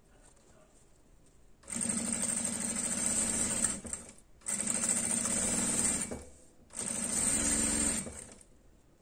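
Domestic sewing machine stitching a seam in three runs of about two seconds each, with short pauses between them, after a quiet start.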